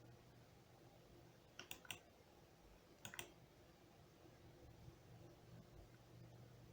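Near silence over a low steady hum, broken by two pairs of quick, faint clicks, the first pair a little under two seconds in and the second about three seconds in.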